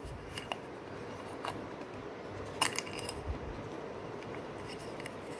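A few light clicks and taps as a Canon 15-45 mm camera kit lens and its plastic cap are handled, the clearest about two and a half seconds in, over a faint steady hum.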